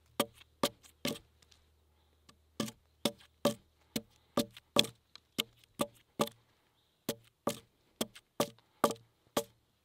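Axe blade striking a windfallen tree trunk again and again, chipping off the bark. Short, sharp knocks about two a second, with a brief pause about two seconds in.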